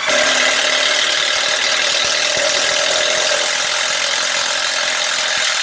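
Ozito cordless impact driver hammering continuously as it drives a larger screw into timber. It runs steadily under heavy load, and the drive is a struggle for the tool.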